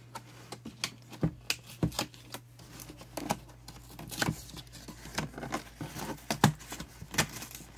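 Hands handling and bending back the glossy cardboard sleeve around a plastic carry case: irregular rustles, scrapes and small knocks, the sharpest about six and a half seconds in.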